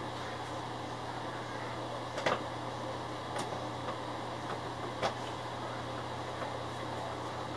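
A few sharp clicks and taps of a screwdriver against an inkjet printer's plastic casing, the strongest about two seconds in and about five seconds in, over a steady low hum.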